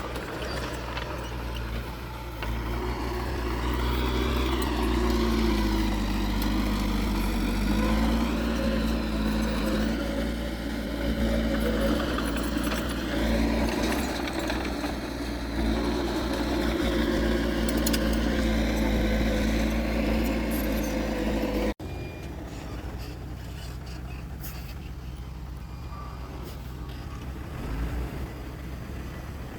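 Heavy earthmoving machinery's diesel engine running under changing load, its pitch rising and falling. Near the end it cuts off suddenly to a quieter, steadier engine sound.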